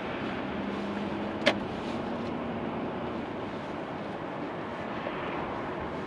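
Car driving along a road, steady tyre and road noise heard from inside the car, with one sharp click about a second and a half in.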